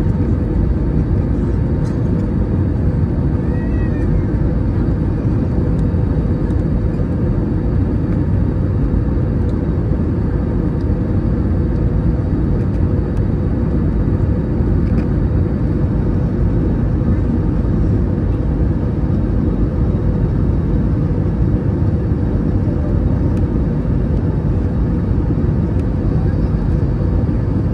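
Steady cabin roar of an Airbus A321 on final approach, heard from a window seat over the wing: airflow noise over the extended landing gear and flaps, together with the IAE V2533 engines, with a steady low hum underneath.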